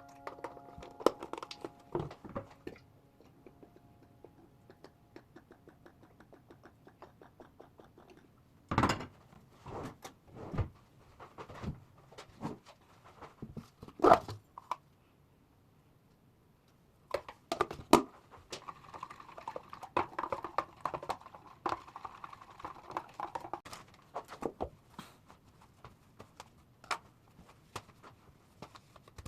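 Irregular handling sounds: scattered clicks and knocks of objects being moved and set down, with louder knocks about nine, fourteen and eighteen seconds in.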